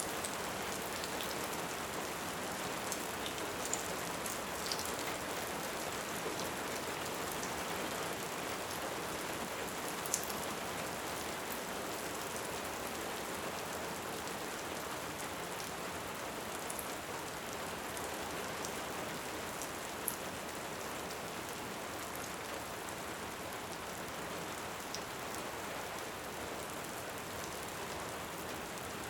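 Steady rain, with a few sharp pops from a crackling wood fire, the loudest about ten seconds in and again about twenty seconds in.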